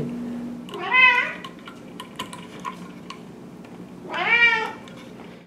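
A domestic cat meowing twice, each meow about half a second long and bending in pitch: once about a second in and again near the end.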